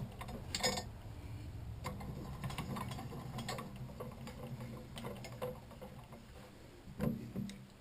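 Scattered light metallic clicks and taps from handling tools and an aluminium workpiece, over a low steady machine hum that fades away. Near the end come a couple of sharper metal clanks that ring briefly.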